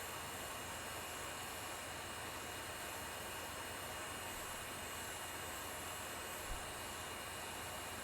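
Steady, even hiss with a faint high-pitched whine running through it, and one soft low thump about six and a half seconds in.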